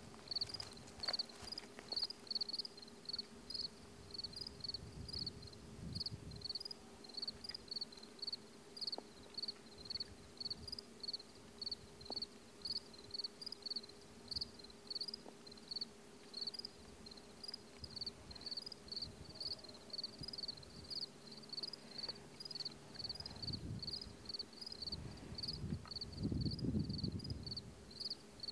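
A cricket chirping steadily, about two short chirps a second, with a faint steady hum under it. A louder low rumble comes near the end.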